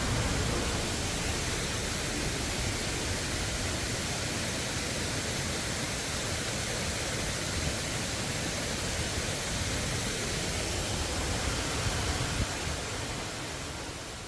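Steady rushing water of a waterfall, an even hiss and rumble, fading out near the end.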